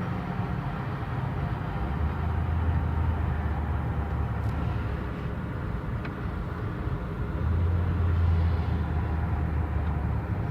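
Motor vehicle engine running with a steady low rumble and road noise, swelling twice in loudness.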